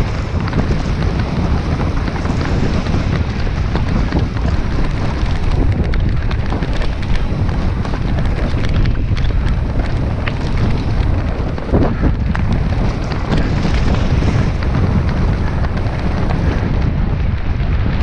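Wind rushing over the microphone and mountain-bike tyres rolling over dirt at downhill speed: a loud, continuous rush, heaviest in the low end, with scattered small knocks.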